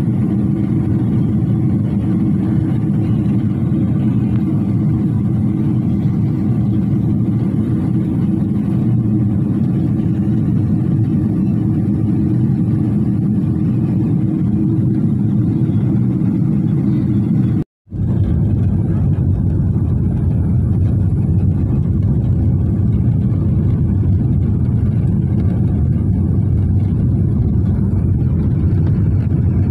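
Steady cabin noise of a Boeing 777 in flight, heard inside the cabin near the wing: the jet engines and the airflow make a deep, even rumble. It cuts out for a split second about two-thirds through, then carries on the same.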